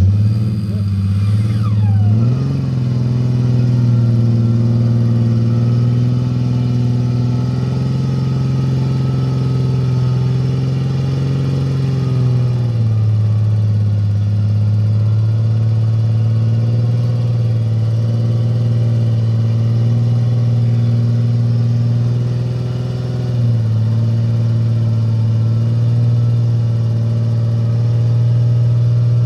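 Off-road 4x4's engine running under load in a mud hole, held at steady revs that step up about two seconds in and drop back around twelve and twenty-three seconds. A short falling whistle sounds just after the start.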